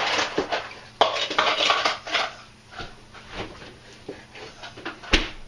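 Kitchen clatter: dishes and utensils clinking and scraping in bursts, with a sharp knock near the end.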